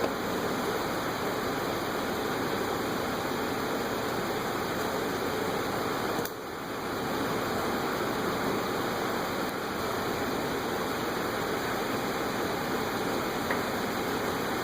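A steady, even rushing noise with no pitch to it, dipping briefly about six seconds in, with a faint click or two near the end.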